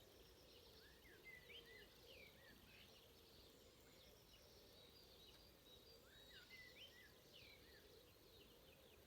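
Faint dawn chorus: one songbird sings the same short phrase of quick rising and falling whistled notes twice, about five seconds apart, over fainter high chirping from other birds.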